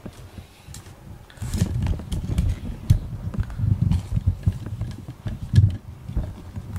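Muffled, uneven low rumbling and rubbing as a cat's fur presses against the camera microphone, starting about a second and a half in.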